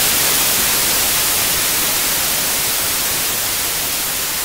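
Loud, steady static hiss like white noise, heaviest in the treble, that eases off gradually.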